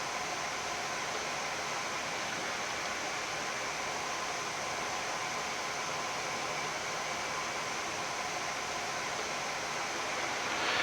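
Steady flight-deck noise of a Boeing 787-10 taxiing with its engines still running: an even hiss with a few faint steady tones.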